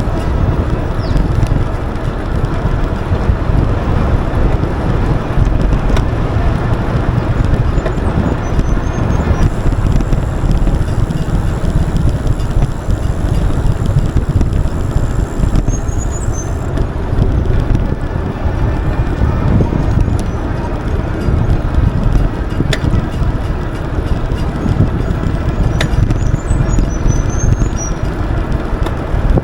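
Wind buffeting the microphone and steady rolling noise from an Aventon Level 2 e-bike being ridden, with a few faint sharp clicks now and then. The clicks are the intermittent clicking that the rider feels through the pedals and suspects comes from the crank.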